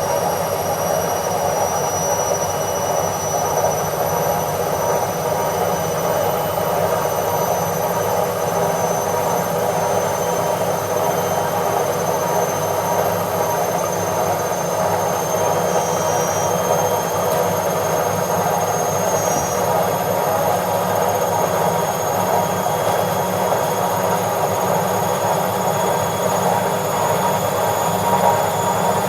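Washing machine on its spin cycle: a steady whirring drone with a faint high whine that rises slowly in pitch.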